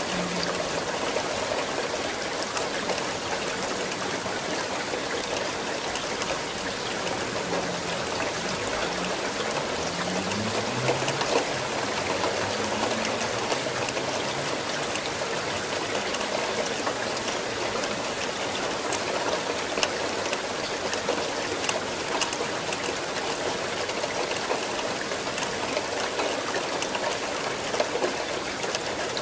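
Steady rain falling: an even wash of noise with many separate drop impacts heard as distinct ticks.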